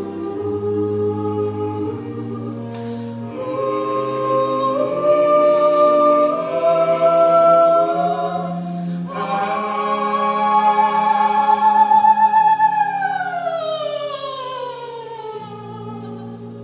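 Live musical-theatre singing: a slow ballad sung by a voice with choir-like backing voices over sustained low chords. The sung line climbs step by step, holds a high note, then slides down in a long glide over about three seconds near the end.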